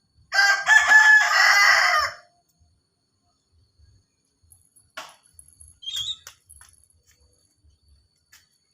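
A rooster crowing once, a single loud crow of about two seconds. A short, fainter high chirp follows about six seconds in.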